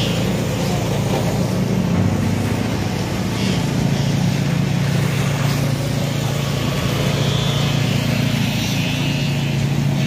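Heavy diesel engine running steadily at constant speed, an even low drone, as concrete is pumped through the hose.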